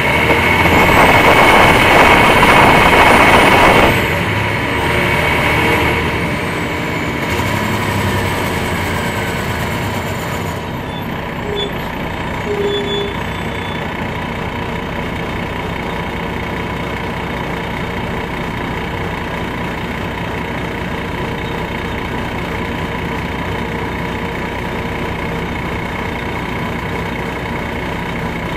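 Inside a 2001 MCI D4000 coach with a Detroit Diesel Series 60 engine: a loud hiss of compressed air from the air system for the first four seconds, cutting off sharply. The diesel then runs on steadily with a constant whine, easing off and settling to an even, idle-like sound.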